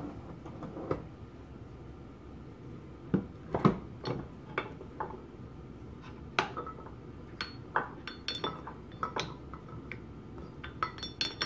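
Steel parts of a Linotype Model 5 knife block clicking and clinking as the block is handled and its adjusting knob is turned to work the freshly oiled slide. The clicks are irregular and sharp, a few with a brief ring, and the loudest come about three and a half seconds in.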